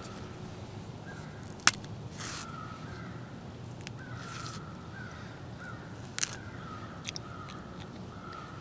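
Crows cawing repeatedly, call after call, over a steady outdoor hush. A sharp snap close by about two seconds in, with smaller clicks later, as a banana is opened and peeled.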